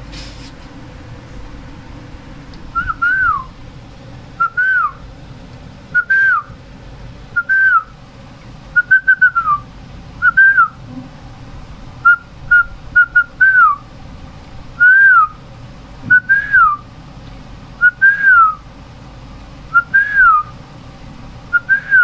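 A series of short whistles starting about three seconds in, roughly one every second and a half. Each rises briefly and then glides down in pitch, with a few quick double pips among them.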